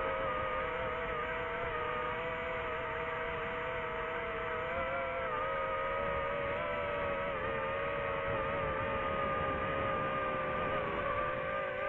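Drone motors whining steadily, a held multi-note hum whose pitch wavers slightly as the throttle changes.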